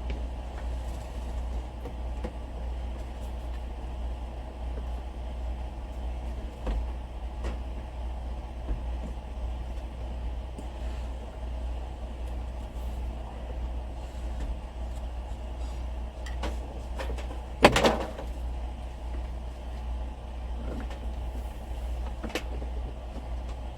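Steady low hum with a few light knocks and clicks, and one short, louder clatter about eighteen seconds in, like something being handled and set in place.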